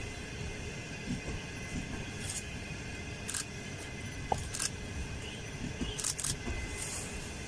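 Green CR200J Fuxing passenger train rolling slowly along the track, a steady low rumble with short hissing bursts several times.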